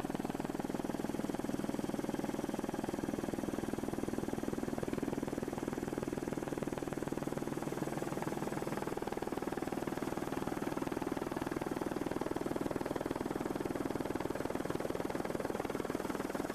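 Steady helicopter cabin noise: the turbine engine and rotor drone heard from inside the cabin, with a fast, even pulsing of the blades.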